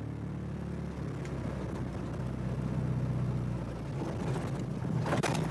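UAZ SUV's engine running steadily at low revs in first gear as the vehicle begins to pull through deep snow on plank-stepping wheels.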